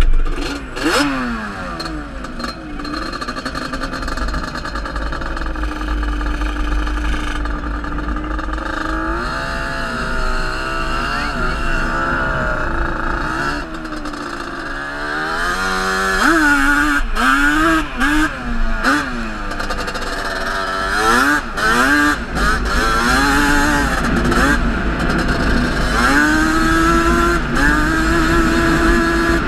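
Sport quad ATV engine being ridden hard, its pitch repeatedly climbing and dropping with the throttle, with quick up-and-down swings in the middle part. A sharp thump right at the start.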